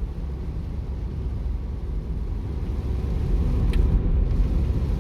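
Low rumbling noise with no clear pitch, growing louder toward the end.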